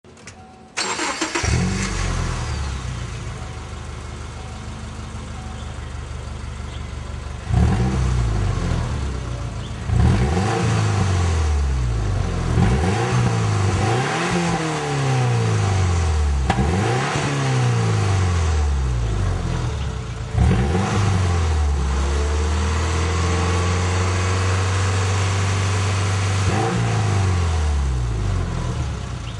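Subaru Impreza 2.5RS flat-four engine heard through a 2005 STi factory axle-back muffler and Strömung midpipe with welded resonator. It starts about a second in and idles, then is revved in a series of quick blips. Near the end it is held at higher revs for several seconds and drops back to idle.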